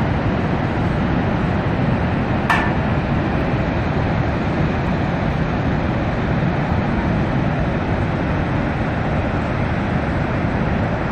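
Niagara Falls heard from the brink: a steady heavy rush of falling water and churning water below. A brief sharp click comes about two and a half seconds in.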